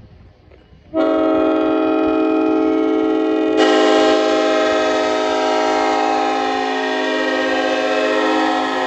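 Nathan Airchime K5HLA hybrid train air horn (bells 1L, 1, 2, 3A, 4) blowing a loud, steady chord that starts abruptly about a second in. About three and a half seconds in, the chord turns brighter and slightly louder, then holds.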